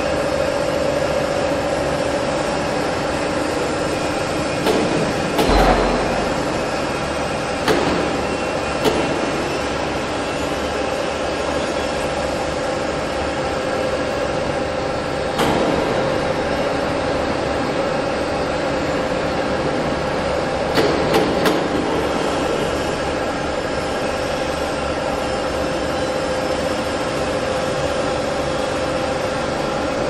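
Steady drone of running industrial machinery with a constant hum, broken by a few short metal clanks about five to nine seconds in, once around fifteen seconds and twice around twenty-one seconds, from handling the steel die basket at an open pit-type gas nitriding furnace.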